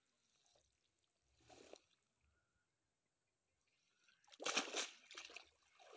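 Water splashing and streaming off a wet cast net as it is hauled out of a pond, in a few loud bursts starting a little after four seconds in. Before that it is mostly quiet, with one brief faint sound about a second and a half in.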